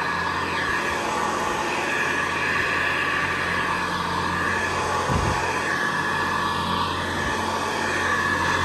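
Hoover Convertible Model 704 upright vacuum cleaner running steadily as it is pushed over carpet, an even motor and fan noise. Its drive belt is freshly replaced. There is a brief low thump about five seconds in.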